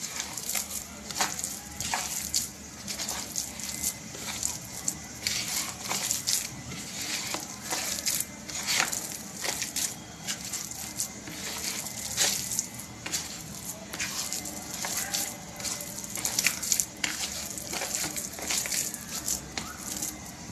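A hand squeezing and kneading a wet mixture of mashed potato, semolina and egg in a plastic tray: a continuous run of irregular wet squelches and crackles.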